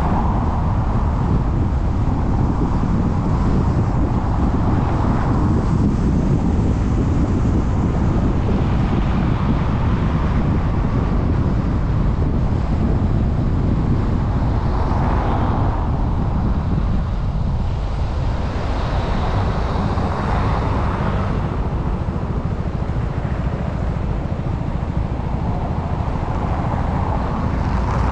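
Car driving through city traffic: a steady road and engine rumble with wind on the microphone, and the noise swelling a few times as other traffic goes by.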